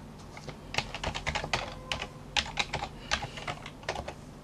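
Computer keyboard keys clicking as a password is typed: a quick, uneven run of keystrokes starting about half a second in and stopping near the end.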